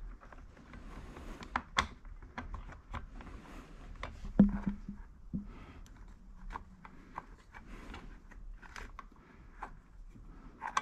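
Handling noises of a plastic motorbike seat being fitted: scattered clicks, taps and rubs of plastic and small mounting hardware under working hands, with one louder knock about four and a half seconds in.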